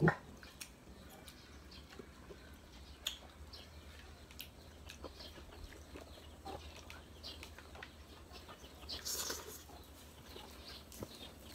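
Quiet mealtime sounds of two people eating with their hands: scattered small clicks and taps on plates, a knock right at the start, and a brief rustle about nine seconds in.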